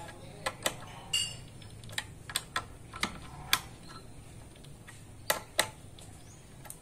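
Light metallic clicks and taps, about a dozen at uneven intervals, as the blade-clamp bolts on an electric planer's cutter drum are tightened by hand with a small tool.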